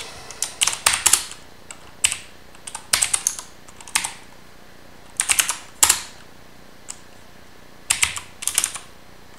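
Typing on a mechanical computer keyboard: quick clusters of key clicks in short bursts, with pauses of about a second between them.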